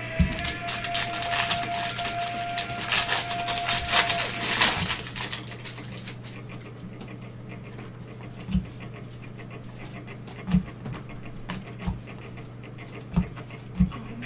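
Foil trading-card pack wrapper crinkling and tearing as it is opened, for about the first five seconds. After that it is quieter, with a few dull knocks as the stack of baseball cards is handled, over a steady low hum.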